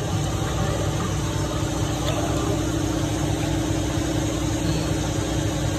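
An engine or machine running steadily, with a constant hum over a low rumble.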